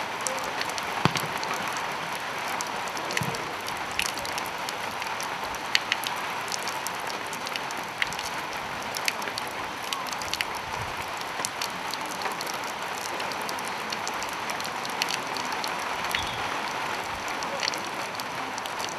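Steady outdoor hiss with many faint, irregular ticks and taps scattered through it.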